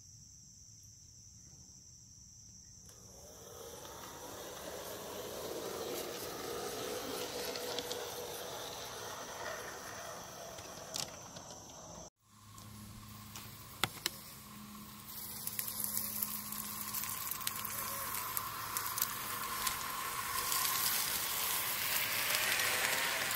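G scale model train running along outdoor track, its wheel and motor noise building as it nears, with insects trilling steadily at the start. After a sudden break about twelve seconds in, another model train runs with a low steady hum that grows louder toward the end.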